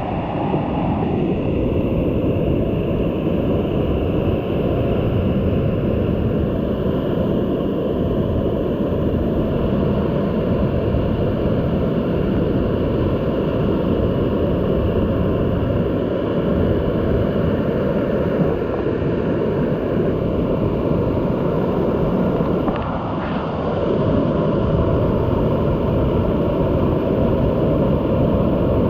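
Waterfall in high flow, a steady, loud rush of falling water that is strongest in the low range.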